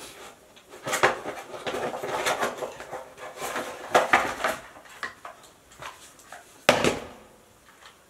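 Cardboard product box being opened and handled: rustling, scraping and a run of light clicks, with one sharp knock about two-thirds of the way through.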